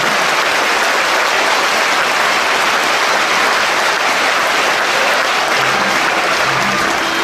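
Theatre audience applauding steadily, a dense clapping. Near the end, low orchestral notes begin to sound under the applause.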